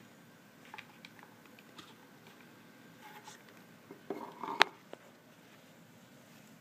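Light handling sounds of a subwoofer recone assembly being lowered and test-fitted into its basket: scattered faint taps and rustles, with a brief cluster of knocks about four seconds in ending in one sharp click.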